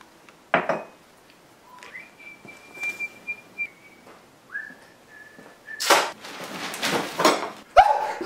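Someone whistling two long, steady notes, the first sliding up at its start and the second a little lower, followed near the end by several loud, rough bursts of noise.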